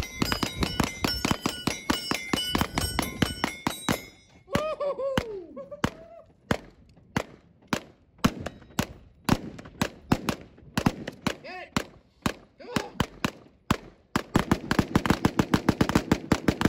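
Rapid pistol fire, shot after shot, with steel plate targets ringing under the hits for the first few seconds. A voice calls out briefly about four and a half seconds in. Near the end two pistols fire together in a dense, fast string.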